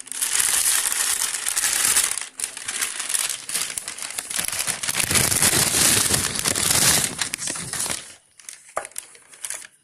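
Packaging wrap being crinkled and crumpled as a kadai is unwrapped, a dense rustle that lasts about eight seconds. Near the end it gives way to a few light clicks and knocks.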